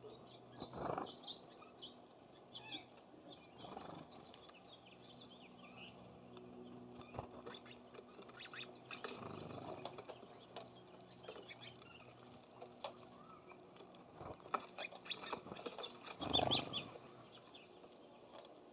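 Small songbirds chirping and calling at a bird feeder, with scattered light taps and clicks. Three louder brief sounds stand out, about a second in, near the middle and near the end, over a faint steady low hum.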